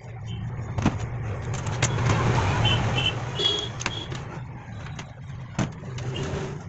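A motor vehicle's engine rumbling nearby, swelling about two seconds in and fading after. Over it come a few sharp clicks of metal starter-motor parts knocked on a steel workbench.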